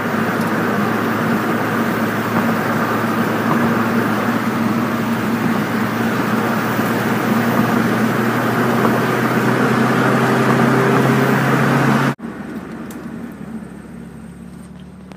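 1998 Mitsubishi Eclipse GS's 2.0-litre four-cylinder, fitted with a cold air intake and stainless header-back exhaust, running steadily on the move over road noise. A faint rising whistle from the cold air intake comes in near the end. About twelve seconds in, the sound drops abruptly to a much quieter hum.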